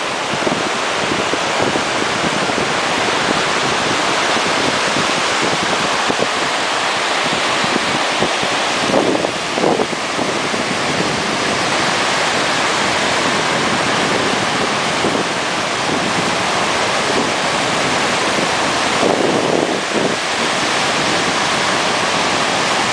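Loud, steady rush of wind buffeting the microphone mixed with water noise, surging briefly about 9 and 19 seconds in.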